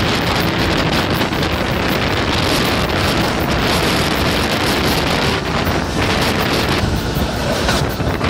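Loud, steady wind buffeting a microphone held outside a moving passenger train, mixed with the train's running noise on the rails.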